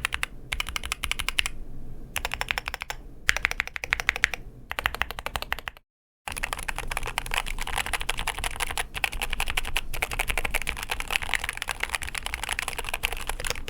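Fast typing on a Keychron K2 HE Concrete keyboard, with Gateron Nebula magnetic linear switches, double-shot PBT keycaps and a concrete case: dense runs of key clicks with short pauses. The sound drops out briefly about six seconds in, then the typing goes on almost without a break.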